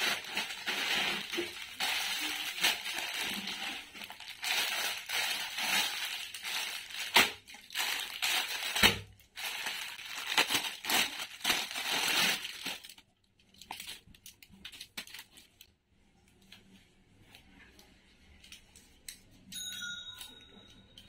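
Plastic packaging, a courier mailer and the garment's shiny plastic wrap, being opened and handled: dense crinkling and rustling with a few sharp cracks, dying down about thirteen seconds in to faint occasional handling sounds.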